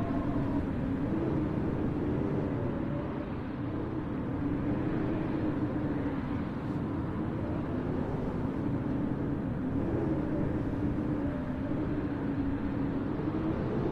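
Blizzard wind: a steady low rumble with a whistling tone that slowly wavers up and down in pitch.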